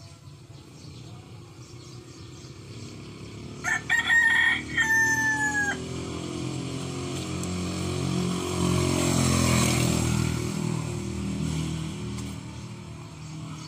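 A rooster crows once, about four seconds in. A low engine-like rumble then swells and fades over several seconds.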